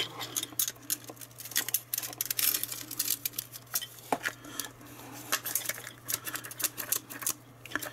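Hard plastic and metal parts of an electric desoldering pump clicking, knocking and rattling as they are handled and pushed together: a run of small irregular clicks.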